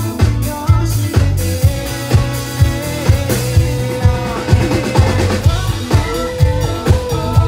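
Live pop-rock band music played loud through the PA, with a steady kick-drum beat about twice a second. A male singer holds one long, wavering note in the middle.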